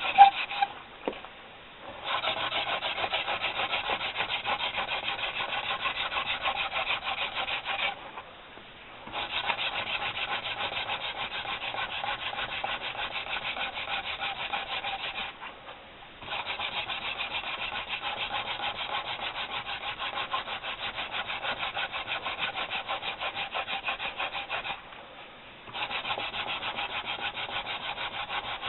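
Wooden hand-drill spindle spun back and forth between the palms against a soft wooden fireboard, a fast rhythmic wood-on-wood rubbing, friction-drilling to build an ember. The drilling stops briefly four times, about every seven to nine seconds.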